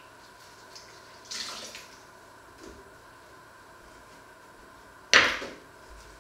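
Water splashes briefly at the kitchen sink about a second in, then, about five seconds in, a sharp clack with a short ring as a metal spoon is set down on a wooden chopping board.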